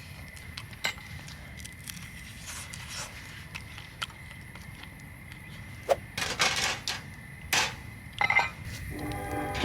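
Wood fire crackling in a small campfire pit, with scattered sharp pops and a couple of louder rustling or handling noises about six and seven and a half seconds in.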